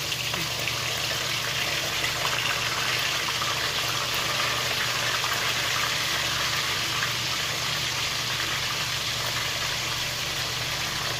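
Pieces of ginger-boiled chicken frying in hot oil in a wok: a steady sizzle with fine crackling as more pieces are laid in.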